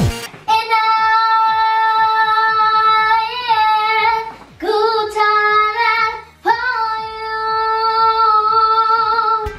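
A girl singing long, held notes in three phrases, the last the longest, with a slight waver in pitch. Faint low thumps repeat underneath.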